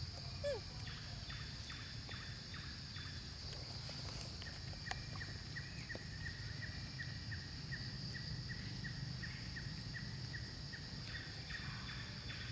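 Forest ambience: a steady high insect drone over a low rumble. From about four seconds in until about ten seconds in, a rapidly repeated chirping call comes about three times a second.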